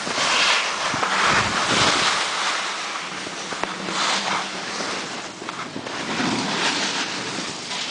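Wind rushing over the microphone while moving downhill, mixed with the hiss of sliding over packed snow, swelling and easing every second or two.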